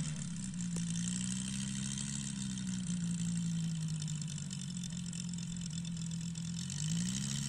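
Valach VM 250 five-cylinder four-stroke radial engine in a large model Fokker D.XXI, running steadily at low throttle while the plane taxis, then revving up near the end.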